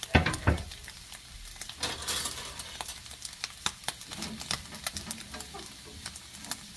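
Shredded dried squid being stir-fried in oil in a nonstick frying pan over low heat: a light sizzle, with a metal utensil scraping and clicking against the pan. Two sharper knocks come just after the start.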